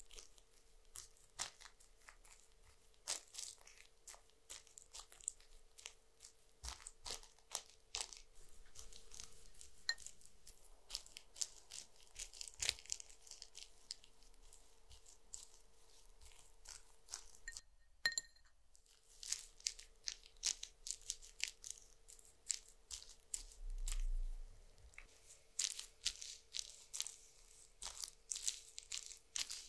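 A fan brush spreading thick, sticky gel across a mannequin's vinyl face, giving a close run of small wet crackles and clicks. The sound cuts out completely for about a second near the middle.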